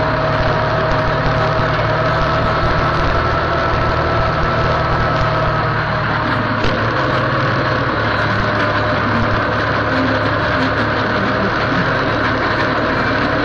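Massey Ferguson tractor engine running steadily while working a field, heard close up from the driver's seat, with a steady whine above the engine note. The pitch shifts slightly about halfway through.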